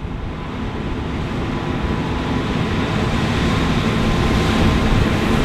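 John Deere S780 combine with a 36-foot Shelbourne XRS36 stripper head harvesting barley: a steady engine and machinery drone with a thin steady whine, growing gradually louder.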